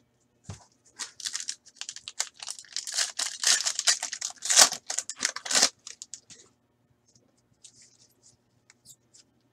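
A foil trading-card pack torn open and crinkled by hand for about five seconds, then faint soft clicks as the cards inside are handled.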